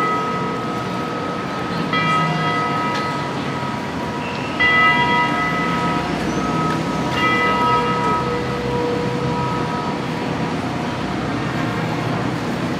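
A bell struck several times, about two and a half seconds apart. Each stroke rings on with a long decay over steady background street noise.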